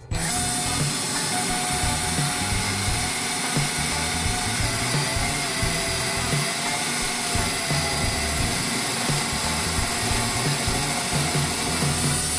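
DeWalt cordless drill running steadily at speed as a countersink drill bit bores into pallet wood, a continuous motor whine over the noise of the cutting. It starts abruptly and runs without a break.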